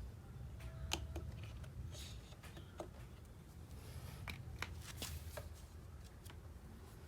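Scattered light clicks and taps, about a dozen at irregular spacing, over a low steady hum.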